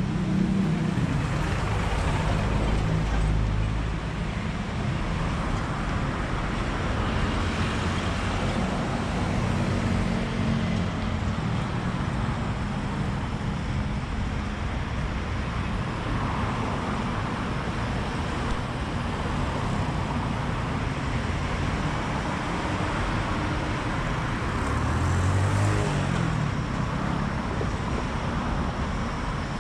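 Busy road traffic running steadily, with the engines and tyres of passing cars and buses. About 25 seconds in, one vehicle passes close with its engine note bending in pitch and swelling louder.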